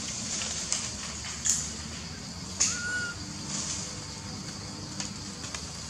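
Macaques scrambling over dry leaves and fallen branches, with several sharp snaps and rustles against a steady high hiss. One short high chirp rises and then holds, a little under halfway through.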